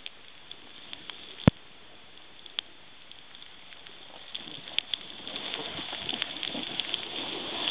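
Snowboard sliding over fresh snow: a thin, crackly hiss with scattered sharp clicks, one loud click about a second and a half in, then a rougher scraping noise that grows louder from about halfway.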